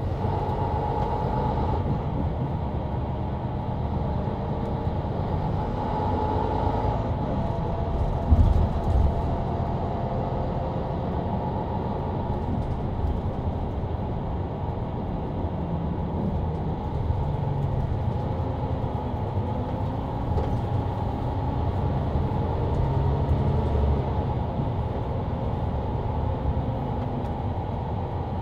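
Mercedes-Benz Citaro C2 LE city bus under way with its ZF EcoLife automatic gearbox, heard from the rear seats near the engine: a steady low diesel rumble with running and road noise. A single thump about eight seconds in.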